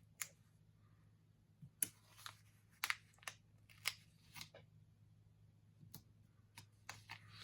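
Handling of paper planner stickers: a few short, light clicks and snips, about eight spread over several seconds, faint over a low steady hum.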